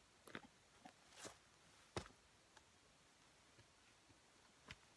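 Near silence, broken by a few faint clicks and knocks as a hang-on tree stand is handled and strapped to a tree.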